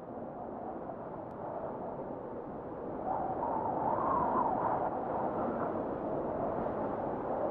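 Murmur of distant voices echoing in a large church, fading in and growing louder about three seconds in.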